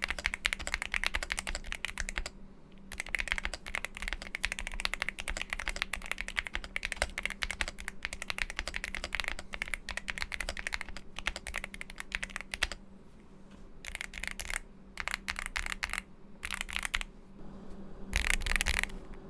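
Typing on a mechanical keyboard fitted with Akko Matcha Green Pro linear switches, factory-lubed with 55 g actuation: fast runs of keystrokes broken by a few short pauses.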